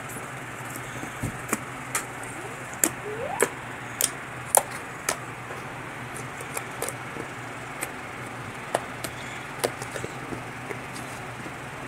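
Slime being kneaded and squeezed by hand: irregular sticky pops and clicks over a steady hiss, busiest between about two and five seconds in.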